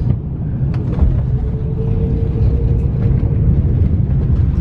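Steady low rumble inside a jet airliner's cabin as the plane rolls along the runway, with a few faint clicks and rattles.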